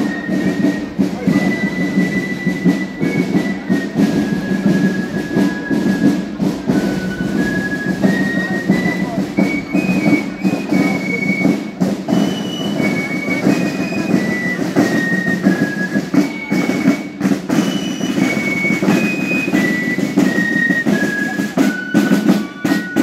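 Marching band in procession: snare drums rattling and beating continuously under a high melody of single held notes that step up and down.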